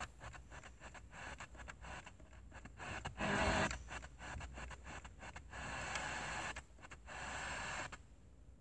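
FM car radio being tuned step by step between stations: choppy static and hiss that keeps cutting in and out, with a brief snatch of a station about three seconds in.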